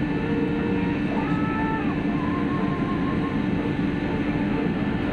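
Passenger ship's machinery running with a steady low drone and a constant hum, with faint voices in the background.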